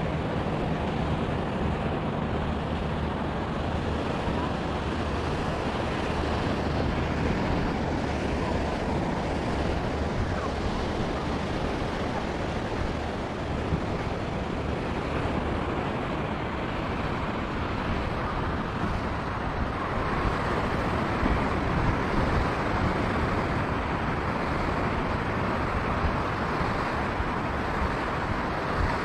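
Steady ocean surf washing onto a sandy beach, mixed with wind noise on the microphone.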